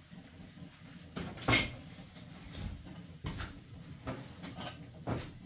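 Clinks and knocks of a metal tea kettle and small tea glasses while tea is poured at a stove: a few sharp knocks a couple of seconds apart, the loudest about a second and a half in with a short ring.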